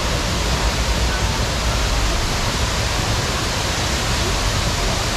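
Steady, even rushing noise with a low rumble, with no distinct events.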